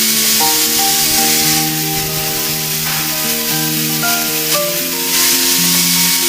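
Background music of sustained chords that change every second or so, over a steady high hiss.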